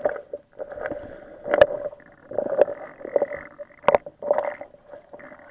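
Muffled underwater sound picked up by an action camera in its waterproof housing: uneven sloshing and rushing of water with a steady low hum, broken by a few sharp clicks and knocks.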